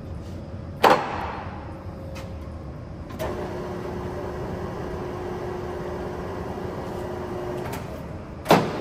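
LeBlond Makino Servo Shift 15C engine lathe being operated at its headstock levers: a sharp clunk about a second in and another near the end, with the machine running and a steady whine from about three seconds in until shortly before the second clunk.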